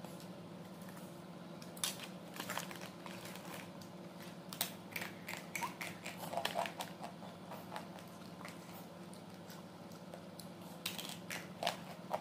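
Crunchy snack being bitten and chewed, with the crinkle of its clear plastic pouch being handled. Clusters of short crisp crunches and rustles come from about two seconds in to about seven seconds, then again near the end.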